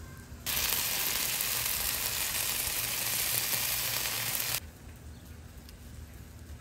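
Cheese-topped chicken breasts sizzling on a hot flat-top griddle: a steady hiss that starts abruptly about half a second in and cuts off suddenly about four seconds later.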